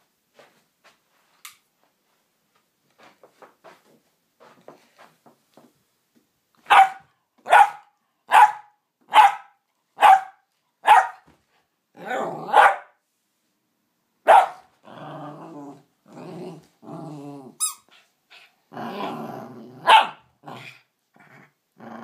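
A cockapoo barking in a run of six short, sharp barks a little under a second apart, then a few more single barks between stretches of low growling, as in play with a toy.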